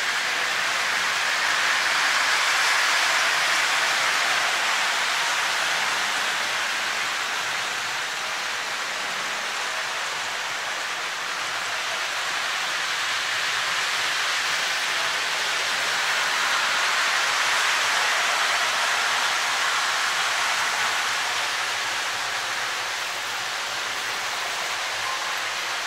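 A steady rushing noise, like running water or a fan, that slowly swells and fades twice.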